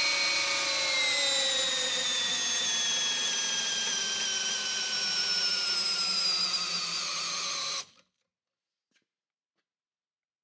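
Milwaukee M18 compact cordless drill on a Forge battery running against a dynamometer's load: a steady motor whine that falls in pitch from about a second in as the load rises and the chuck speed drops, then cuts off suddenly near the end when the run stops.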